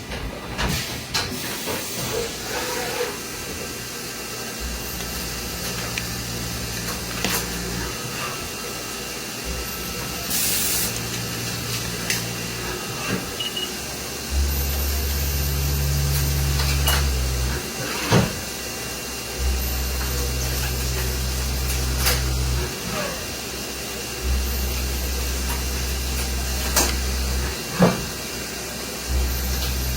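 Haas VF-2SS CNC vertical machining center running, its low motor hum switching on and off in spells of a few seconds. Sharp clicks and knocks come at intervals, and there is a short burst of hiss about ten seconds in.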